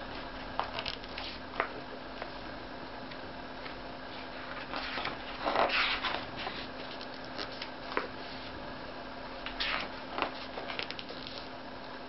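Pages of a large hardcover book being turned by hand: three rustling, swishing page turns, the loudest about halfway through, over a steady low hum.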